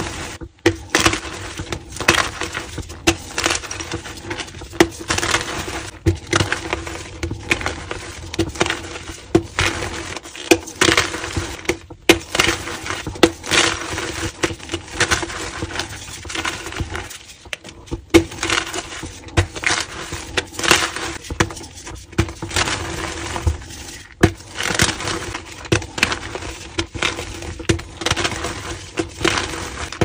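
Homemade calcium carbonate gym chalk blocks being crushed and crumbled in bare hands: a dense, continuous run of dry crunches and crackles. The run breaks off briefly a few times.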